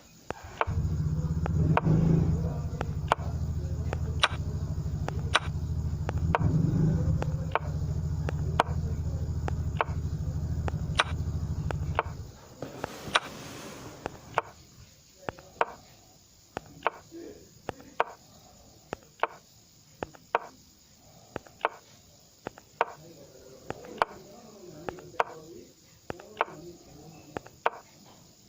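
Irregular sharp clicks, about one or two a second. A steady low hum sounds under them from just under a second in until it cuts off about twelve seconds in.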